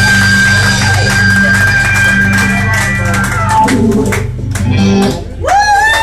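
Live rock band ending a song: a held electric guitar note over bass and drums, a run of closing drum hits, then the music stops about five seconds in. A loud rising-and-falling whoop from a woman in the crowd follows.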